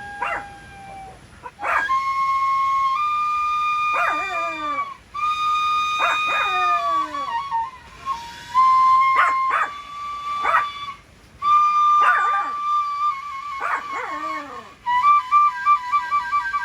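A dog giving about seven falling-pitch yelps, one every second or two, over background music with a steady held melody that steps in pitch.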